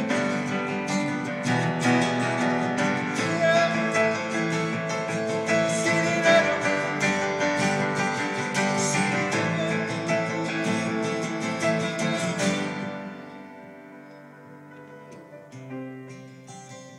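Acoustic guitar strummed through an instrumental break between verses, the chords ringing steadily, then dropping much quieter about twelve seconds in.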